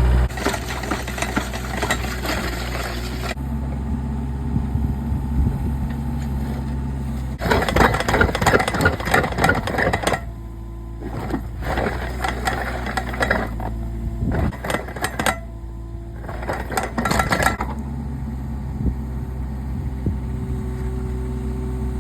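Kubota mini excavator's diesel engine running steadily while its auger drills post holes, with several bursts of metallic rattling and clinking.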